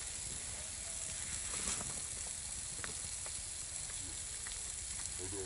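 Steady outdoor hiss with a few scattered small clicks and crunches.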